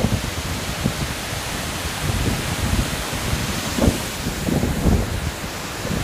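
Tall waterfall plunging over rock into a pool: a loud, steady rush of falling water. There are a few short low bumps on the microphone about four to five seconds in.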